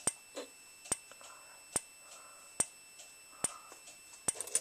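Simplex 4903-9146 speaker strobe flashing, with a sharp click on each flash about every 0.85 s over a faint steady high whine.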